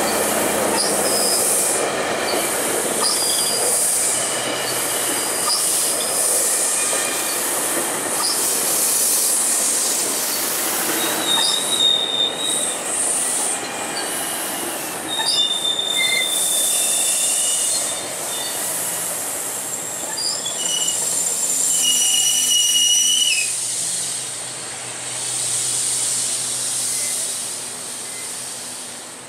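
Double-deck GO Transit passenger coaches rolling past as the train slows, with a steady rumble and hiss and many short high-pitched wheel and brake squeals; the sound fades near the end as the cab car goes by.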